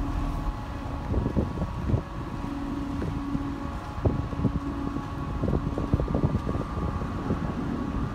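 Steady hum of a large moored ferry's onboard machinery, with faint held tones and low wind rumble on the microphone. Short irregular knocks or gusts break through now and then.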